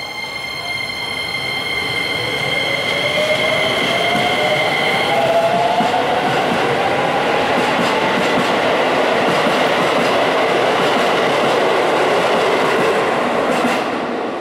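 Keisei 3000-series electric train with a Toyo IGBT-VVVF inverter pulling away and accelerating. The motor whine rises in pitch over the first several seconds, and steady high tones cut off about five seconds in. Loud running and wheel noise follows as the cars pass, dropping near the end as the last car clears.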